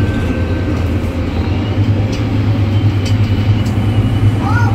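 Inside a city bus under way: the engine's steady low drone with road rumble, and a faint thin high whistle from the Voith automatic gearbox that rises gently from about a second and a half in. A few light rattles from the cabin fittings.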